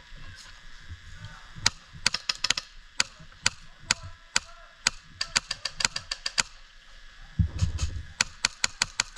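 Airsoft guns firing: scattered single sharp snaps and quick strings of shots, with a rapid run of them about five to six and a half seconds in. A low thump and rumble comes about seven and a half seconds in.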